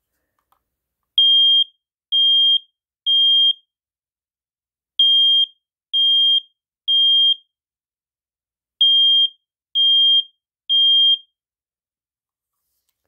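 SA303 smoke alarm sounding its test: nine high-pitched beeps, each about half a second long, in three groups of three with a pause between groups. This is the standard temporal-three alarm pattern, showing that the alarm works.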